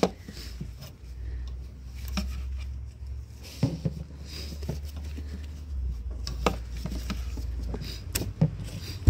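Gloved hands handling rubber heater hoses and their fittings in an engine bay: scattered light clicks and knocks over a low steady rumble.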